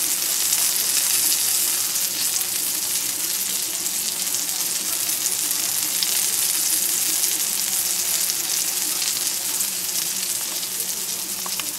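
Morel mushrooms sizzling in hot fat in a frying pan: a steady frying hiss with an occasional tiny pop.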